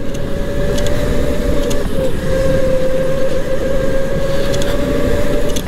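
Electric go-kart's motor whining at one steady pitch while the kart drives at speed, with a rushing noise underneath. The whine dips briefly about two seconds in.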